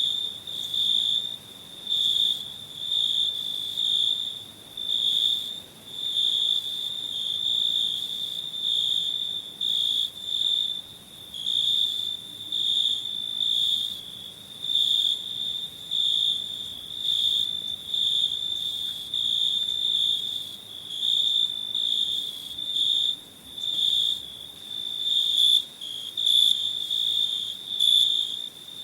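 Crickets chirping in repeated pulsing trills, about two a second, on one high steady pitch.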